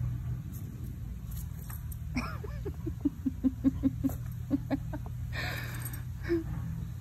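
A woman's soft, rhythmic chuckling, a quick run of short laughs about two seconds in, over a steady low hum.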